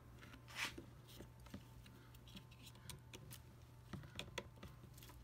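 Faint, scattered small clicks and taps of 3D-printed plastic extruder parts and wires being handled and pressed into place, over a low steady hum.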